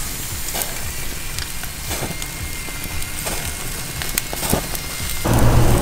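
Hogfish fillets and spiny lobster tails sizzling on a gas grill, an even hiss with small crackles. Near the end a low steady hum comes in.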